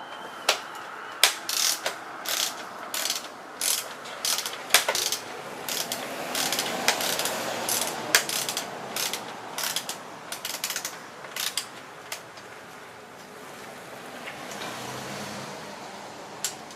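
Ratchet wrench clicking in quick bursts of strokes as a fender bolt is backed out, stopping about twelve seconds in. A low rumble swells near the end.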